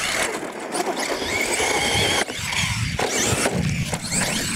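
Radio-controlled monster truck driving on dirt: its motor and gears whine, the pitch rising and falling with the throttle, over a rough rushing noise from the tyres on the dirt.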